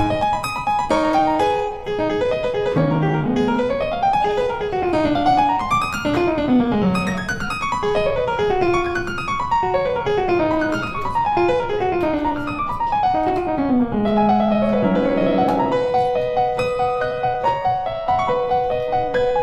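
Background piano music, with quick runs of notes that ripple up and down the keyboard.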